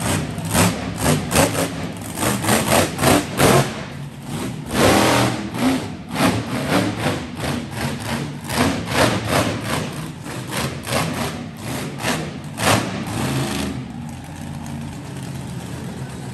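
Monster truck engine revving in a quick, uneven series of loud throttle blips. Near the end it settles back to a steady idle.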